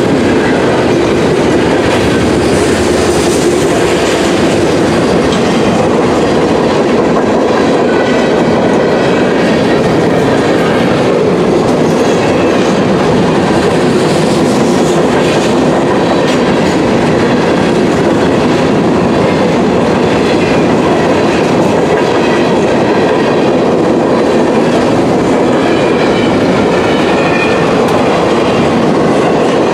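Freight cars rolling steadily past, steel wheels running on the rails in a continuous loud rumble.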